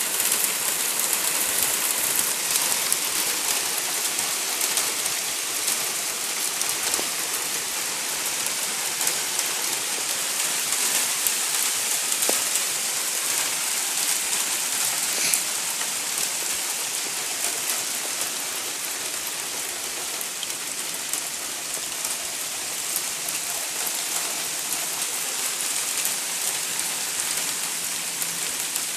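Hail falling hard and steadily: a dense, unbroken hiss made of countless small ticking impacts.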